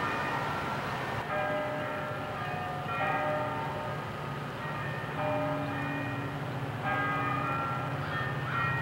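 Bells ringing: groups of overlapping steady tones, each lasting a second or so and each on a different set of pitches, over a steady low rumble.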